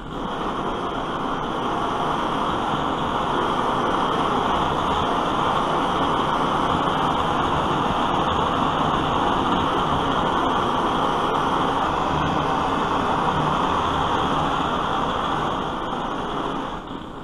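Vintage brass gasoline blowtorch burning after being relit, its burner giving a steady, loud rushing hiss. It builds over the first couple of seconds, holds level, then dies down near the end.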